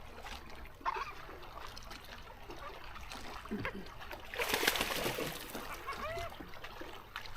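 Water splashing in one loud burst about four and a half seconds in, among small knocks and lapping water.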